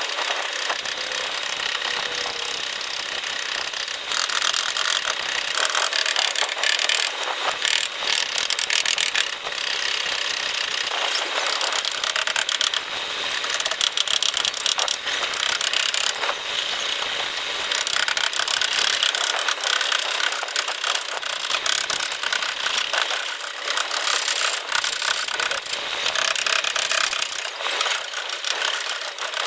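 Continuous scratchy rubbing and scraping, thick with fine rapid clicks and a few brief pauses, from hand-tool work on a car's rear fender panel during paintless dent repair.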